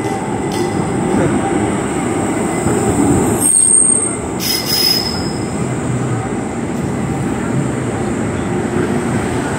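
Škoda 15T tram rolling slowly through a tight curve, a steady rumble of wheels on track with short high-pitched wheel squeals about halfway through.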